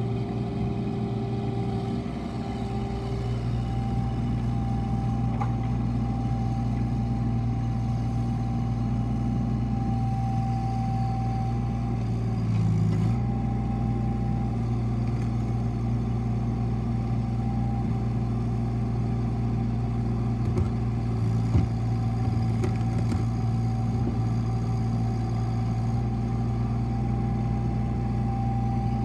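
Bobcat 325D mini excavator's diesel engine running steadily while the machine slews and works its arm, with a thin steady whine over the engine note. The engine note swells briefly about halfway through, and there is a small knock near the three-quarter mark.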